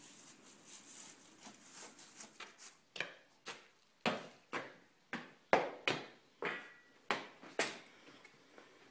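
Footsteps on a hard floor, about two a second, starting about three seconds in after a few seconds of faint background noise.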